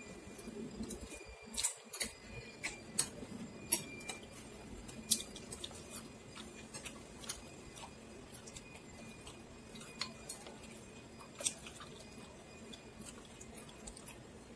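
Chopsticks and a soup spoon clicking and tapping against a ceramic bowl of noodle soup as the noodles are stirred and lifted: irregular light clicks, most of them in the first half, over a faint steady hum.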